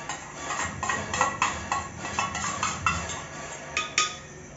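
A ladle knocking and scraping against a steel cooking pot while stirring saag as the maize-flour paste is mixed in, a quick uneven run of clinks, some with a short metallic ring.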